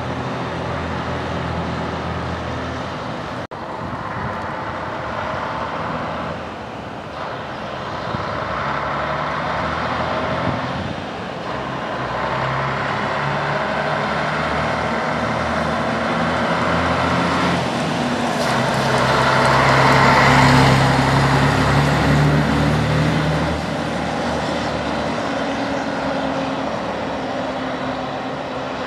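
Scania 112 tractor unit's diesel engine running as the truck drives by, its pitch changing a few times. It is loudest as the truck passes close about two-thirds of the way through, then fades as it pulls away. The engine is running well.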